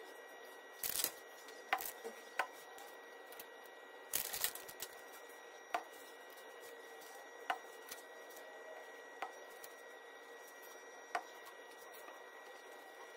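Scattered small clicks and knocks of hand work on a bare aluminium Ford Coyote 5.0 cylinder head: valve stem seals being picked up and pressed by hand onto the valve guides, about eight sharp taps a second or two apart. A faint steady hum runs underneath.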